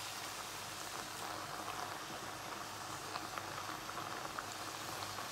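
Tomato, onion and bacon sauce bubbling and sizzling in a frying pan as chicken stock is poured in and stirred: a steady hiss with scattered small pops.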